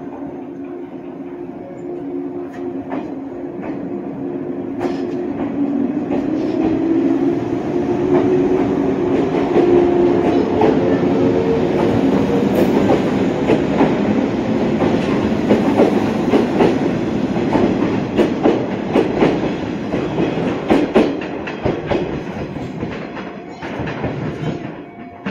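Izuhakone Railway Sunzu Line electric train pulling away: its motor whine rises in pitch as it gathers speed, then the wheels clack over the rail joints as the cars pass. The sound eases off near the end.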